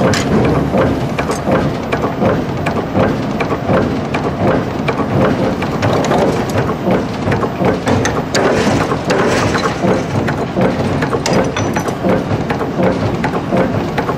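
Forging hammer working a red-hot axe head between its steel dies in a forge shop: a dense, unbroken clatter of metallic knocks and clanks over a steady low noise.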